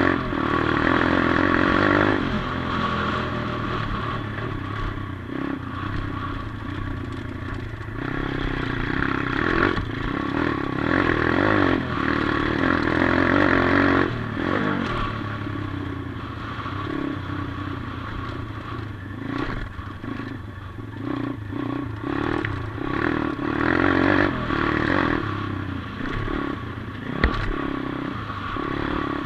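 A 140cc pit bike's small single-cylinder four-stroke engine revving up and easing off with the throttle while riding, loudest at the start, through a stretch in the middle and again about four-fifths of the way through. Rattles and knocks come through from riding over the rough dirt track, with one sharp knock near the end.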